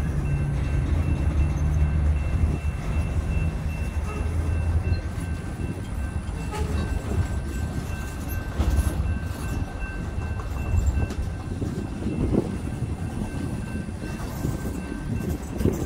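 Freight train boxcars rolling past: a steady rumble of steel wheels on rail with scattered knocks. A low hum is strong for the first four seconds or so and then fades out.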